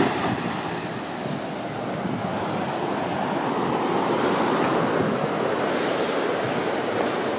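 Ocean surf breaking and washing against coastal rock stacks: a steady rush of breaking waves that swells slightly partway through, with wind on the microphone.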